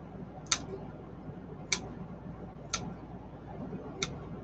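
Kitchen scissors snipping through pepperoni slices: four sharp snips about a second apart, over a low steady background hum.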